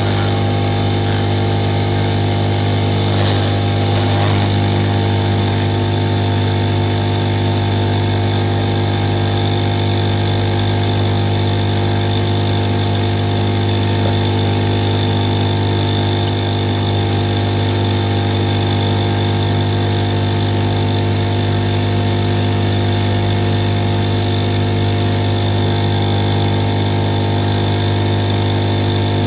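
A steady low hum with many overtones, unchanging throughout. It is typical of a small electric motor or mains-powered device running.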